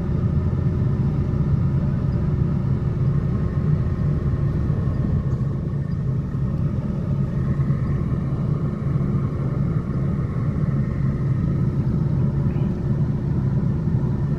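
Train passing, a steady low rumble that runs on without a break.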